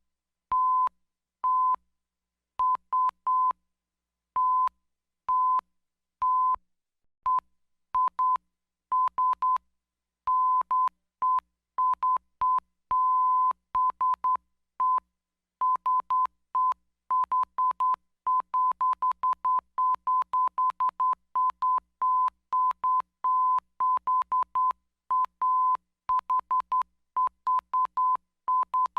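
Morse code sent as a single steady mid-pitched beep, keyed on and off in short and long tones (dots and dashes) with short gaps between them. Each tone starts and stops with a slight click, and the keying quickens after about fifteen seconds.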